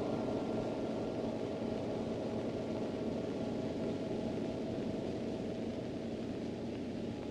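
A steady, noisy drone from the soundtrack, with a few faint held tones dying away. It thins out and gets a little quieter toward the end.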